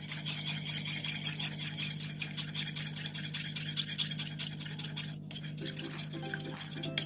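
Metal spoon scraping round a frying pan in quick, scratchy strokes, stirring brown sugar into thick teriyaki sauce. Music comes in faintly about five and a half seconds in.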